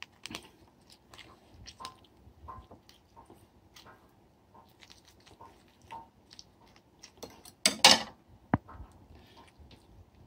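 A lemon half squeezed by hand and worked with a knife over a glass bowl: faint wet squishes and small scattered clicks, with one louder crackling burst about eight seconds in.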